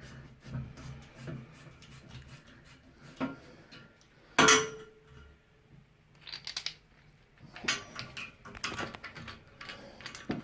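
Metal tools and fittings being handled: scattered clicks and knocks, one loud metallic clank about four and a half seconds in that rings briefly, then clusters of quick light ticks and taps.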